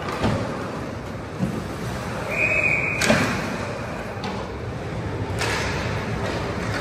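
Ice hockey game sounds in an echoing rink: several sharp bangs and knocks over a steady hall noise, the loudest about three seconds in. A short high tone sounds just before the loudest bang.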